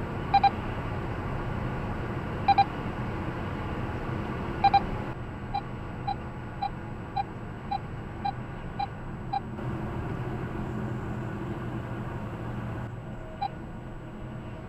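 Neoline X-COP 9000 radar detector sounding its alert beeps over steady car-cabin road noise: three double beeps about two seconds apart, then a quicker run of eight single beeps about two a second, and one more single beep near the end. The beeps warn of an approaching Avtodoria average-speed camera zone.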